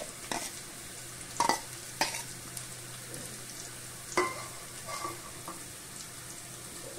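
Onions sizzling steadily in oil in a pressure cooker, with several short knocks as green chillies and tomato pieces are dropped into a stainless-steel mixer-grinder jar.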